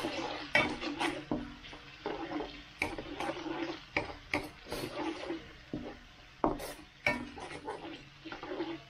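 Spatula scraping and knocking against a metal wok, stirring garlic and ginger sautéing in oil, with irregular clacks over a steady sizzle.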